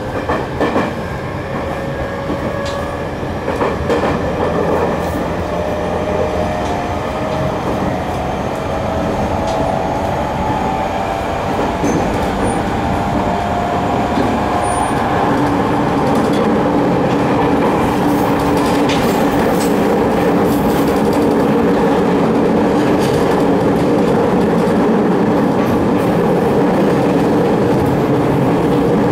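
Running sound of a JR 209 series 3100 train's GTO-VVVF inverter and MT73 traction motors, heard from inside the car. The inverter whine climbs in pitch over the first dozen seconds or so as the train gathers speed, then holds steady, with wheel-on-rail running noise that grows louder throughout.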